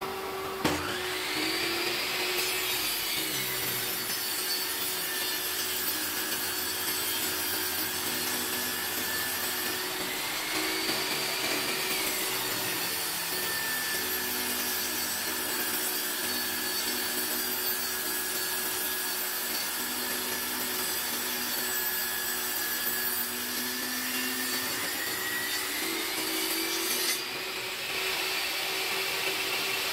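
Bench table saw running and ripping a wooden board along its fence. The blade's whine drops in pitch while it cuts and climbs back up near the end as the board clears the blade.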